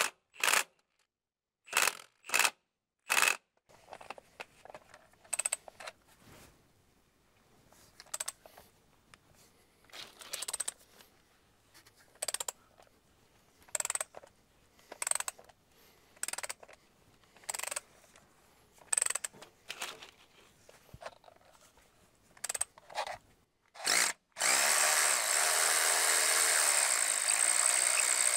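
Impact wrench on a stubborn transmission bell housing bolt: a string of short trigger bursts about a second apart, then one continuous run of about four seconds near the end.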